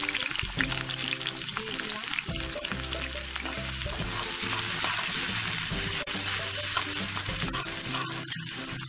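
Chopped onions sizzling in hot oil in a karahi, stirred with a metal spatula that scrapes and taps against the pan.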